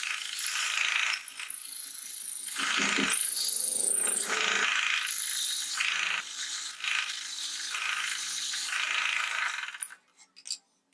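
Hole saw in a drill press cutting through plywood: a steady rasping cut with a high whine over the motor's hum, swelling and easing as the saw is fed in. It stops suddenly near the end, leaving a few small clicks.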